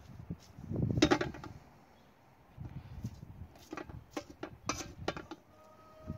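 A rabbit being skinned with a kitchen knife over a metal pot: short cutting, tearing and scraping sounds, with one louder rustling scrape about a second in and a quick run of sharp clicks in the second half.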